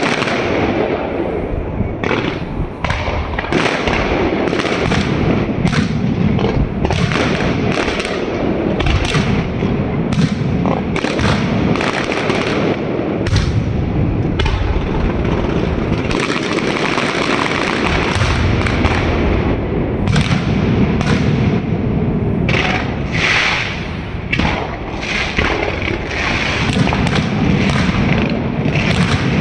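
Fireworks display going off in rapid succession: a dense, unbroken run of sharp bangs and deep booms over a continuous rumble.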